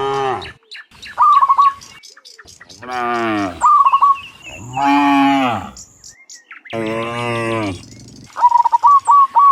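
Cattle mooing, four long calls, one after another, each rising and falling in pitch. Between them a bird chirps in three quick bursts of short notes, loudest near the end.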